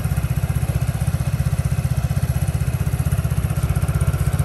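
Freshly rebuilt Kymco VJR scooter engine idling steadily with an even, rapid exhaust pulse; it runs quiet, with the CVT belt drive not yet fitted.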